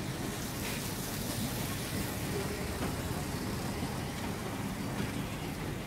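Railway passenger coaches rolling past on the track, a steady low rumble of wheels and running gear.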